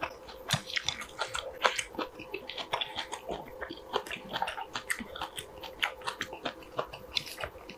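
Close-miked chewing of a mouthful of kimchi-braised saury: many small, irregular wet clicks and smacks of the mouth.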